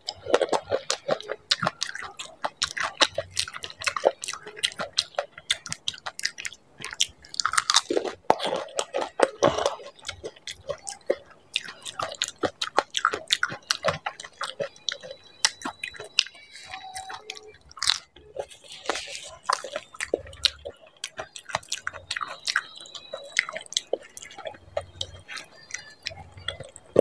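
Close-miked mouth sounds of eating dahi puri: crisp puri shells crunching and being chewed, with a dense run of irregular crackles and clicks.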